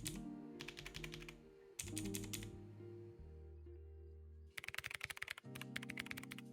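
Typing on a BAJEAL K100 mechanical keyboard with blue switches: short runs of rapid key clicks in several bursts, with a denser, faster flurry about two-thirds of the way in. Background music plays throughout.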